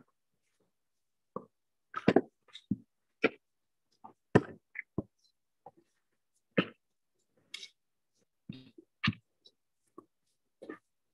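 Shovels scooping soil from a mound and throwing it into an open grave: a series of short, irregular scrapes and thuds of earth landing. Each sound is cut off sharply with dead silence between, as through a video call's noise suppression.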